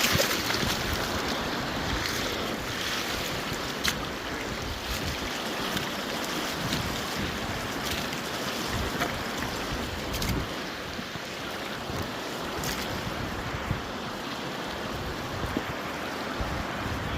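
River water running low and shallow over rocks, a steady rushing, with wind buffeting the microphone and a few sharp clicks.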